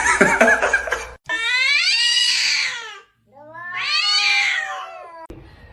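A domestic cat yowling: two long, drawn-out meows of about two seconds each, each rising and then falling in pitch, after a shorter high call in the first second.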